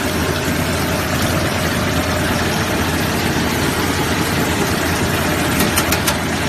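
Sesame cleaning and washing machine running: a steady low motor hum under a constant rushing noise, with a few sharp clicks about five and a half seconds in.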